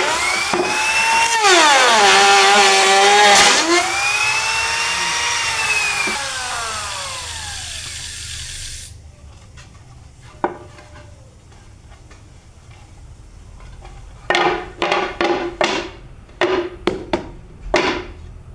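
Electric wood router running at high speed while profiling the edge of a round wooden tray, its pitch dipping twice under the cut before the motor winds down and fades. Several short sharp bursts of sound follow near the end.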